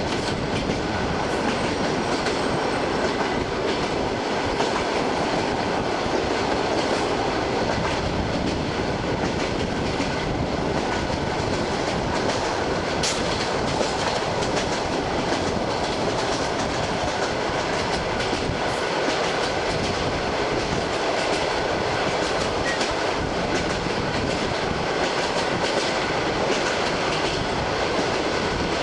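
ED9M electric multiple unit running at speed, heard from on board: a steady rush of running noise with the wheels clicking over rail joints now and then.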